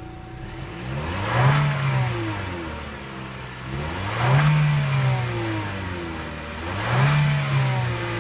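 2014 Chevrolet Sonic LTZ's turbocharged four-cylinder engine revved three times from idle. Each rev rises quickly and falls back, about three seconds apart.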